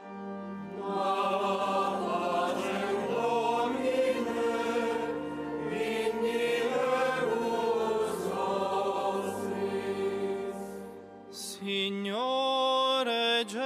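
Mixed choir of men and women singing a slow chanted response to a litany in held notes. Near the end a single male voice takes up the chant alone.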